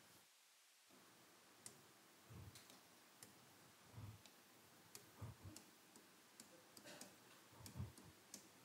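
Near silence with faint, scattered clicks and a few soft taps: a pen tapping on the screen of an interactive display board while writing.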